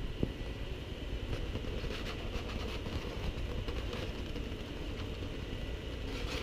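Fabric rustling as hands shift and press a couch cushion, in clusters between about one and four seconds in and again near the end, over a steady low rumble of handling noise on a body-worn action camera.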